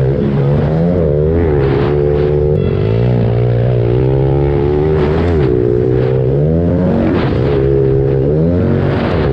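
Pit bike's single-cylinder four-stroke engine ridden hard on a dirt track, heard close from onboard. The revs climb and drop again and again as the throttle is worked through the lap.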